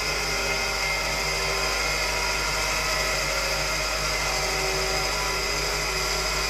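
Tubular centrifuge running at speed during a test: a steady, high-pitched whine made of several constant tones over a low hum.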